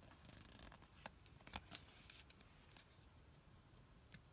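Faint rustling and a few soft clicks of Pokémon trading cards being handled and slid through a stack in the hands.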